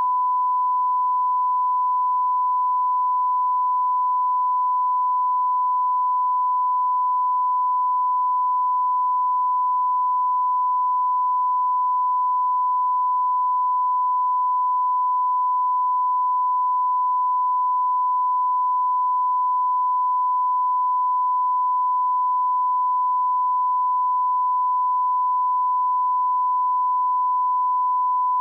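A steady, unbroken 1 kHz sine tone at constant level: the line-up test tone that heads a broadcast programme recording.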